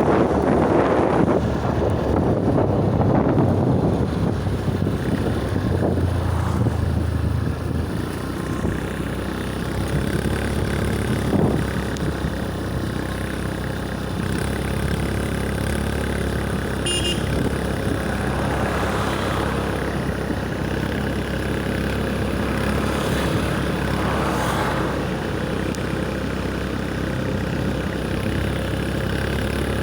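Steady road-vehicle noise, a motor running with road rumble, louder over the first several seconds. A short run of high beeps sounds a little past the middle.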